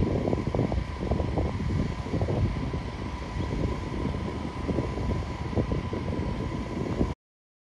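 Wind buffeting the microphone, an uneven low rumble, over a steady faint high tone; the sound cuts off suddenly about seven seconds in.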